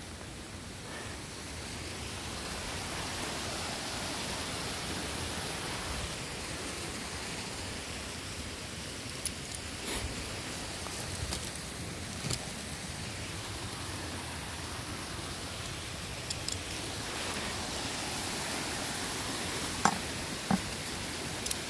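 Steady rushing background noise, with scattered light knocks and rustle of a camera being carried through forest undergrowth. Two sharper knocks come near the end as a picked matsutake mushroom is set into a plastic bucket.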